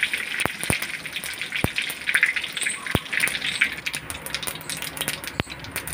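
Cumin, mustard seeds and curry leaves sizzling and crackling in hot mustard oil in an iron kadhai, with several sharp pops scattered through the hiss.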